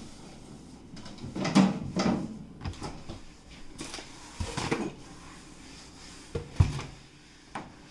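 Things being handled on a kitchen counter during wiping, a box of aluminium foil among them: a few scattered knocks and bumps, the loudest about six and a half seconds in.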